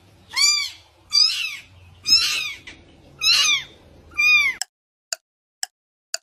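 Very young kitten mewing: five high-pitched mews, each about half a second long and about a second apart. After them come short sharp clicks, about two a second.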